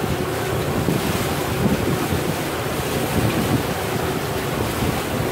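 Wind buffeting the microphone over the steady rush and splash of water along the hull and outrigger floats of an outrigger boat under way.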